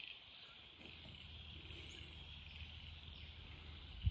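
Faint, steady high-pitched chirring of a chorus of insects, with a low rumble coming in about a second in and a short click near the end.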